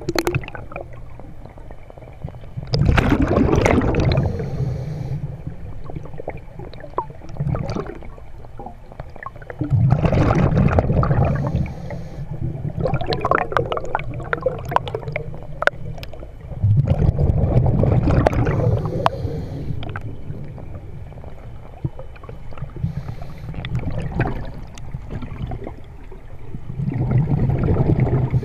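Underwater scuba breathing heard through the camera housing: exhaled bubbles from the diver's regulator rush past four times, about every seven seconds, with a crackling bubble fizz in between.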